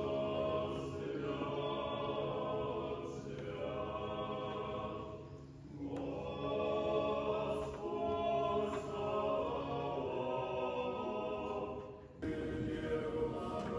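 Male monastic choir singing Orthodox church chant in sustained chords. The singing dips briefly about five seconds in and cuts off abruptly near the end, resuming at once on another passage.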